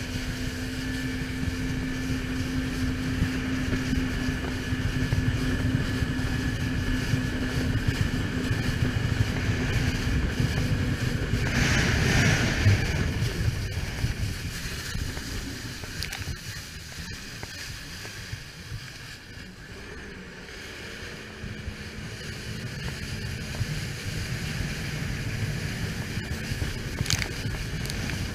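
Jet ski engine running under way, a steady hum over a dense rumble of wind on the handlebar-mounted camera's microphone and water against the hull. A short loud rush of noise comes a little under halfway, the sound eases off in the middle, and the engine and wind pick up again toward the end.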